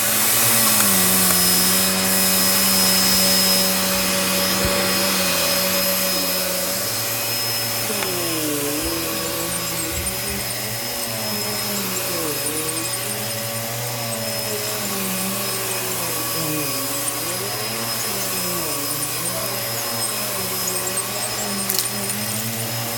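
Bissell Power Clean vacuum cleaner running on a thick rug. It holds one steady pitch for the first several seconds, then its motor pitch repeatedly dips and recovers, about every second and a half.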